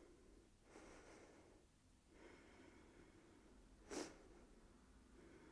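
Near silence with faint breathing, and one short, sharp breath through the nose about four seconds in.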